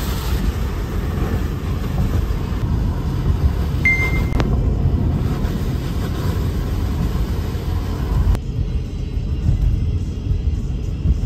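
Steady low rumble of a moving vehicle under background music, with a short high beep and a click about four seconds in.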